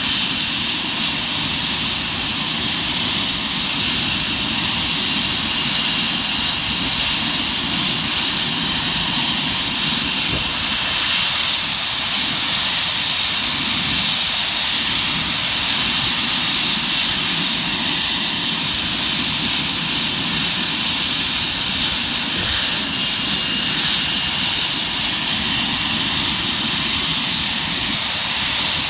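Panavia Tornado GR4's twin Rolls-Royce RB199 turbofan engines running steadily on the ground, a loud even jet noise with a sustained high-pitched turbine whine.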